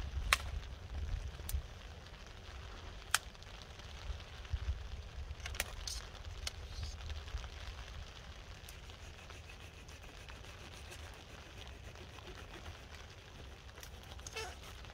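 Wind buffeting the microphone in a low, steady rumble over a faint hiss, with a few sharp isolated ticks and crackles scattered through.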